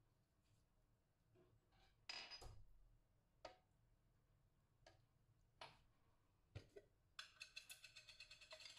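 Near silence with faint kitchen handling: a few light taps and clinks of dishes and a glass chopper bowl as ingredients are added, ending in a quick run of light ticks.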